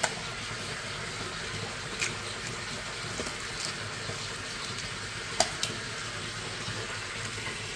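Running water pouring steadily over a cooked mud crab held in the stream and splashing down below it, with a few sharp clicks as the crab is handled, the loudest about five and a half seconds in.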